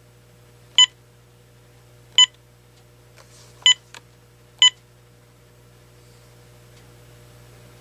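AT&T 7720 cordless phone beeping as its buttons are pressed, four short beeps at uneven intervals over the first five seconds, each one brief and identical, over a faint steady low hum.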